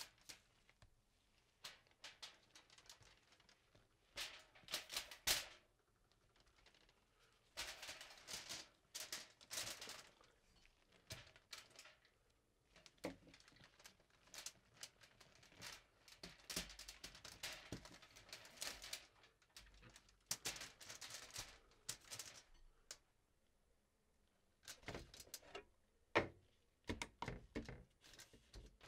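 Mushrooms being snapped and pulled off a colonized substrate block by gloved hands and handled on aluminium foil: irregular soft snaps, clicks and rustles with brief foil crinkles.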